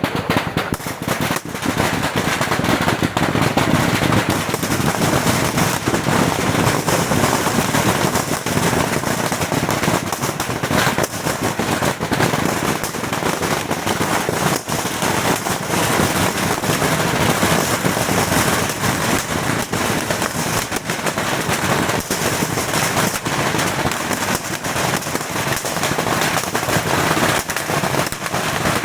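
Beehive rocket fort firing thousands of bottle rockets in a continuous barrage: a dense, unbroken crackle of rapid bangs and whizzing rockets with no pause.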